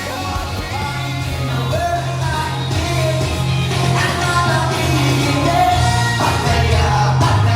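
Rock-pop song with a sung vocal line over a bass line.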